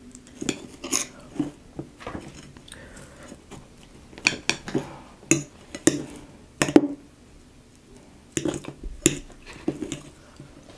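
A fork clicking and scraping against a dish while cheesecake is cut and scooped: irregular clusters of sharp clicks with short quiet gaps, the sharpest click about two-thirds of the way through.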